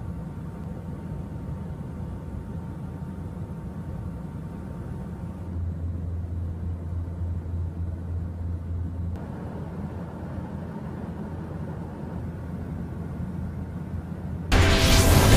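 Steady low drone of aircraft engines heard from inside the cabin in flight, growing somewhat louder for a few seconds from about five seconds in. Just before the end a music jingle starts suddenly and loudly.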